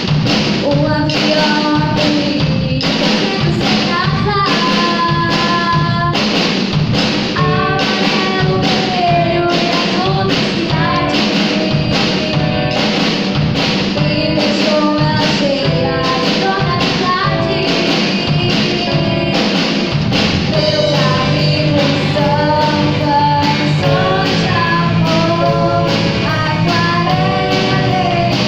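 A band playing a rock song with singing over guitar and a steady drum beat.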